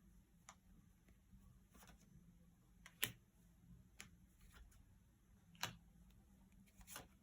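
Near silence: room tone with a few faint, scattered clicks and taps, the sharpest about three seconds in.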